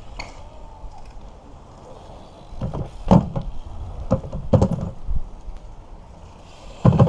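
BMX bike knocking and clattering in three short bursts of sharp knocks, about three seconds in, about four and a half seconds in, and at the very end.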